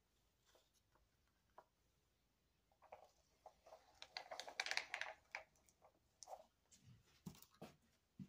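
Faint handling sounds of soap batter being poured into a lined loaf mold: scattered light clicks and taps, with a short stretch of soft scraping about four to five seconds in.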